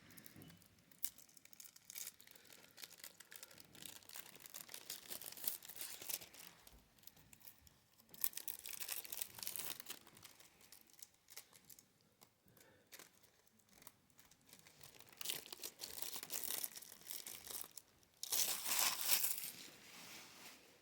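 Plastic shrink wrap being torn and crinkled off a Blu-ray case, in several spells of crackling, the loudest near the end.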